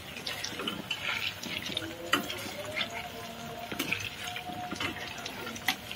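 Batter-coated eggplant slices deep-frying in hot oil in a black iron kadai: a steady sizzling and bubbling with scattered crackles. A metal spatula knocks against the pan a few times as the pieces are turned.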